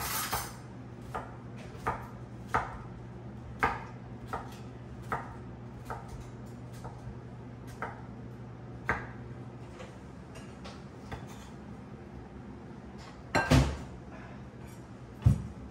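Kitchen knife chopping cucumber on a wooden cutting board, in separate sharp chops about one a second, thinning out, with a louder clatter of knocks near the end.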